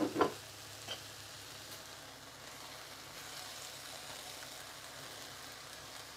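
Riced cauliflower in coconut milk and oil sizzling faintly in a skillet, with a couple of light clicks in the first second.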